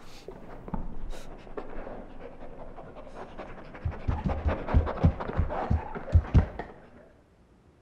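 Horror-film sound design of something moving on the floor overhead: a run of crackles and creaks that grows into a string of heavy thumps in the second half, then cuts off about seven seconds in.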